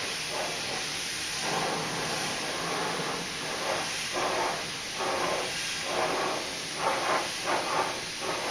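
Paint spray gun hissing with compressed air as clear coat is sprayed, the hiss swelling and easing in short surges, more often in the second half.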